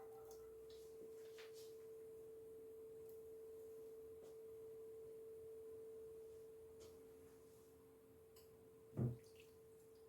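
Near silence with a faint steady tone just under 500 Hz, a few faint ticks, and one soft knock about nine seconds in.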